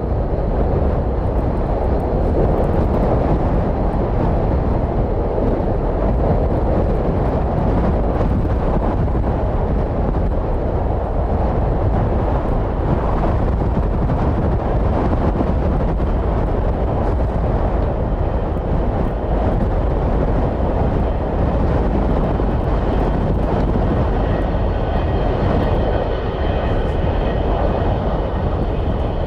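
Boeing 727-200F's three Pratt & Whitney JT8D turbofans running at taxi power, under heavy wind rumble on the microphone. Near the end, a high engine whine made of several steady tones comes in.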